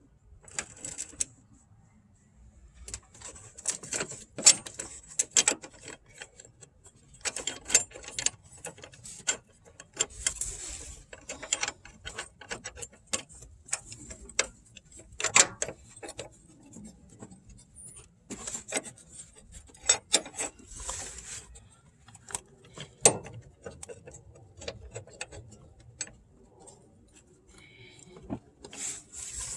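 Metal hand tools clicking and clanking against each other and the engine bay, in short irregular runs with brief pauses between them.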